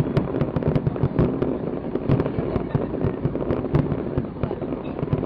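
Aerial fireworks barrage: a dense, continuous run of shell bursts and crackling bangs, several a second, over a steady rumble.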